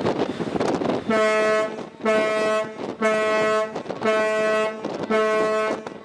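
A warship's horn sounding five short blasts about a second apart, each one steady low tone: the international danger signal warning of a risk of collision. Wind rushes on the microphone before and between the blasts.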